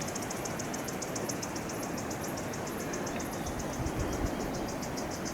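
Insects chirring in a fast, even, high-pitched pulse over a steady background hiss.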